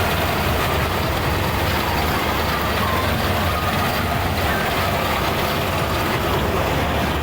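Combine harvester running steadily under heavy load: a constant engine and machinery drone with a low hum.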